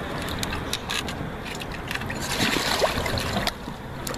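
Shallow water sloshing and trickling as a large goliath grouper is handled in it, with scattered small knocks and clicks and a brief hissing splash about two and a half seconds in.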